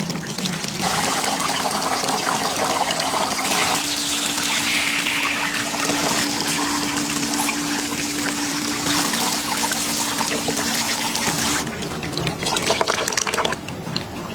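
Water running steadily from a shower spray onto hair, a head-spa rinse, with a faint steady hum underneath. It starts about a second in and cuts off a couple of seconds before the end.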